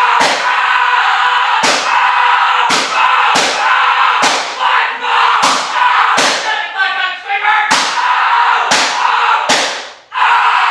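A rapid series of loud thuds, roughly one to two a second, each with a short ringing tail, over a steady background tone. A brief wavering pitched sound comes near the middle.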